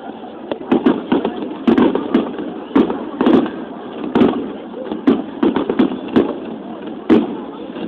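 Aerial fireworks bursting in a rapid, irregular series of about a dozen sharp bangs.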